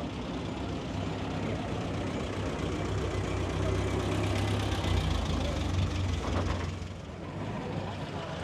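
Old lorry's engine running as it drives slowly past, a low drone that swells to its loudest about halfway through, then fades away; a vintage car follows behind it.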